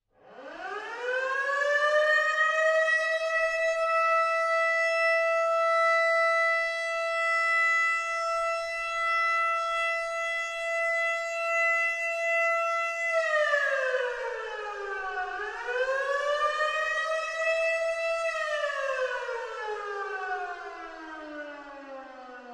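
A siren winding up over a couple of seconds to a steady wail and holding it for about ten seconds, then dipping, rising again, and slowly winding down.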